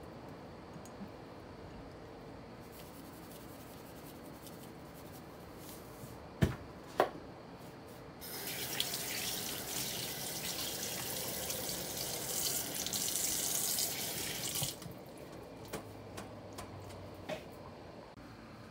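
Two sharp knocks, then water running from a tap for about six seconds before it is shut off, followed by a few light clicks.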